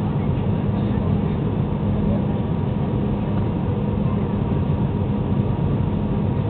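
Steady jet airliner cabin noise: a constant rumble of engines and airflow heard from a seat inside the cabin, with a faint steady hum running through it.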